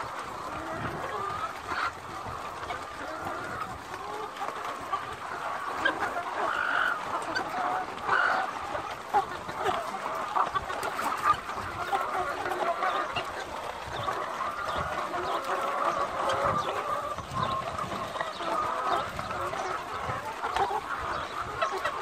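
A large flock of caged layer hens clucking together in a steady, dense chatter, with louder single calls standing out now and then.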